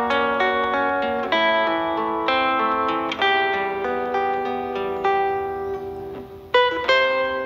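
Solo acoustic guitar music, notes plucked one after another with chords underneath; it fades briefly about six seconds in before a sharp new phrase starts.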